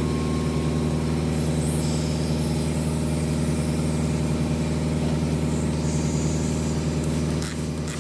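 Electric piston air compressor running steadily with a fast, even pulsing, pressurising a freshly soldered car radiator for a leak test. The sound dips slightly near the end.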